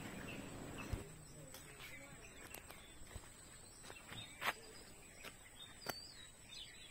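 Quiet outdoor ambience with a few faint clicks and taps, a faint steady high tone, and a brief bird chirp about six seconds in.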